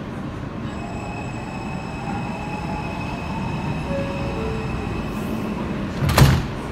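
R160 subway train moving through a station: a steady low rumble of the running train with a faint high whine, and one sudden loud bang about six seconds in.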